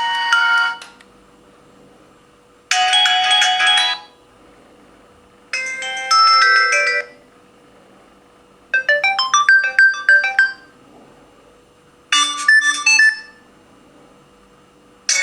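Fly MC180 button phone's stock ringtones played one after another: short electronic melodies of one to two seconds each. One tune ends about a second in, four different tunes follow with pauses of about a second and a half between them, and another starts at the very end.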